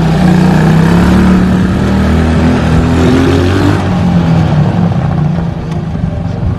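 Rebuilt quad bike (ATV) engine running under way on a test ride, its pitch climbing as it accelerates, then dropping and fading near the end as it moves off.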